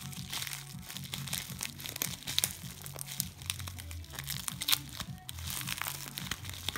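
Hands crinkling, crumpling and tearing open a white plastic mailing envelope: a dense, irregular run of crackles and rustles.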